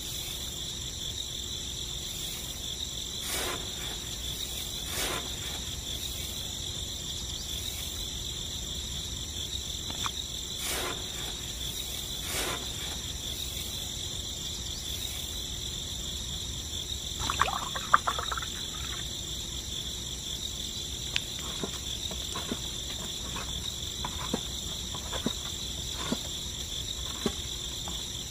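Steady, high-pitched insect chorus running without a break, with scattered light clicks and taps and a short rattle of them a little past the middle.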